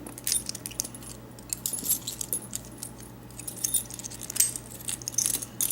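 Irregular light metallic clicking and jingling as warded picks are swapped and worked in the keyway of a cheap warded padlock, small pieces of metal knocking together.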